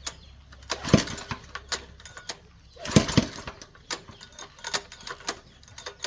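Two hard pulls on the recoil starter of a 196 cc single-cylinder gasoline engine, about two seconds apart, each a brief cranking rush; the engine does not catch, as it won't start. Small clicks and rattles between the pulls.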